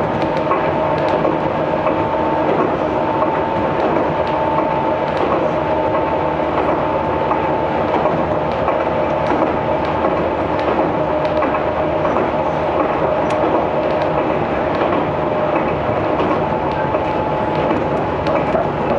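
Aizu Railway 6050 series electric train running at steady speed, heard from inside the passenger car: a continuous running rumble with a steady whine and occasional clicks from the wheels over the rails.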